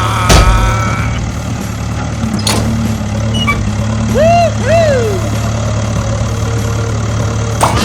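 An engine idling with a steady low hum, broken by a few sharp knocks and, about halfway through, two short rising-and-falling calls.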